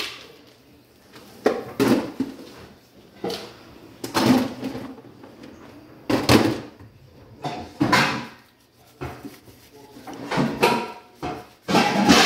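A string of separate knocks and clatters in a small kitchen, roughly a dozen, spread irregularly with short quiet gaps between them.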